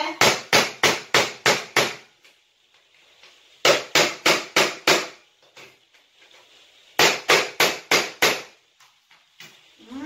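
Hammer driving a screw through an old tin tray to punch holes in the metal: three quick runs of blows, about four a second, with short pauses between.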